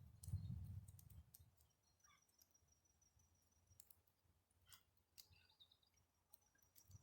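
Faint, scattered clicks and ticks, with a low rumble in about the first second.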